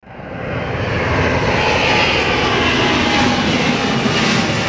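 Jet airliner engines running: a steady, loud rushing noise with a faint high whine, fading in quickly at the start.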